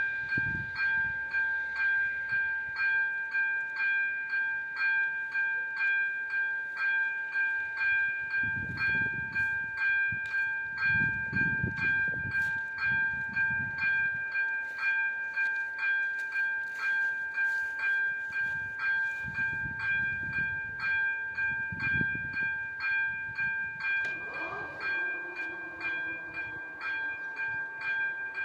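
Railway level crossing warning bell ringing with steady repeated strikes, signalling a train approaching or passing. Low rumbles come and go midway, and a falling whine rises under the bell near the end, just before the bell cuts off.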